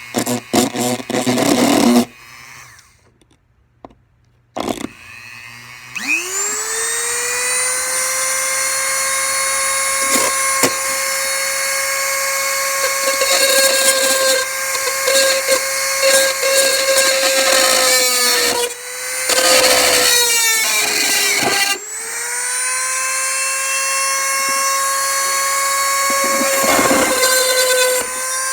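Dremel rotary tool with a drill bit spinning up to a steady high whine while drilling acrylic. About two-thirds of the way through it slows and wavers, then spins back up to full speed.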